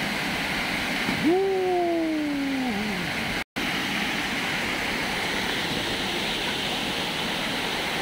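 Steady rush of a small waterfall spilling over rock ledges into a stream. About a second in, a single long call rises sharply and then slowly falls in pitch for about a second and a half. Midway the audio cuts out for a split second.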